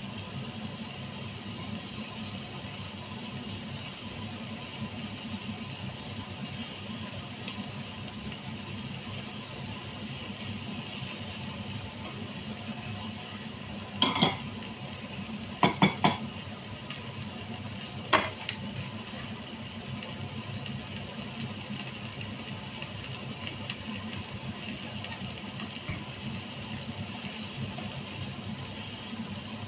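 Diced vegetables sizzling in an oiled frying pan while they are stirred with a silicone spatula. About halfway through come four sharp clinks of cookware, close together.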